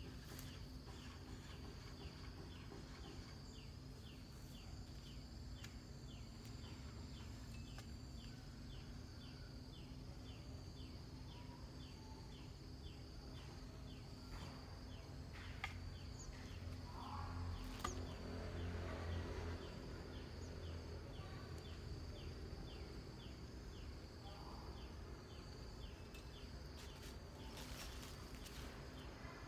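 Insect chirping in an even rhythm, about two short chirps a second, over a thin steady high buzz. Past the middle there are a few seconds of louder rustling and scraping.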